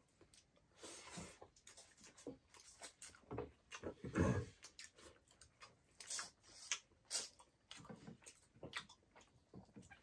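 Close-up eating sounds of chewing pork leg and soup: irregular wet mouth clicks and smacks, loudest about four seconds in.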